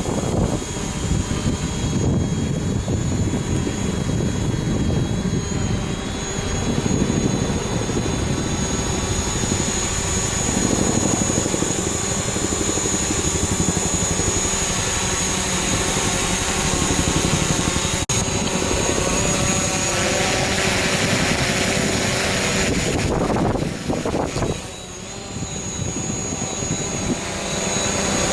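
DJI Mavic Pro quadcopter flying, its motors and propellers giving a steady high-pitched whine, over wind rumbling on the microphone. The sound drops briefly near the end.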